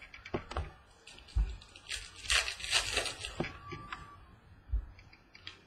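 Trading cards and their packaging being handled: scattered light taps and knocks, two dull thumps, and a rustle lasting about a second and a half from around two seconds in.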